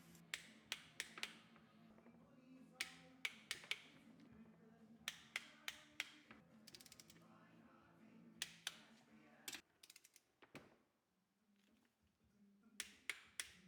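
Wrench ratchet clicking in short runs and single sharp clicks as the engine's crankcase screws are tightened, with one quick run of clicks about halfway through.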